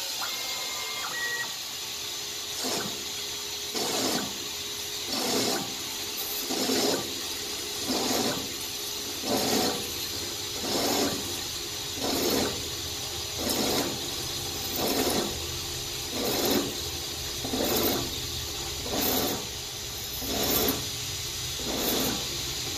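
Grizzly G0602 CNC lathe parting off a turned pulley: the parting tool cuts in short, even bursts about every second and a half, pecking into the work over the steady run of the spindle.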